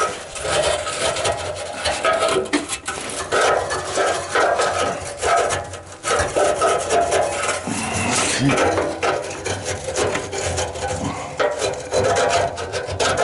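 Small cleaning brush scrubbing and scraping inside a Hallmark HBD85 gas furnace, in rapid, irregular back-and-forth strokes.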